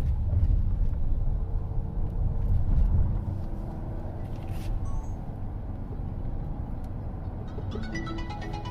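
Road noise inside a moving Waymo self-driving car's cabin: a steady low rumble of tyres and drivetrain, heavier in the first three seconds. Music starts from the car's speakers near the end.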